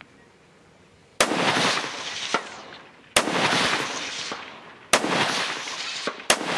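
Four single rifle shots from a scoped AR-15, fired one at a time about one and a half to two seconds apart. Each shot rolls off in a long echo, and a faint sharp click follows about a second after the first and third.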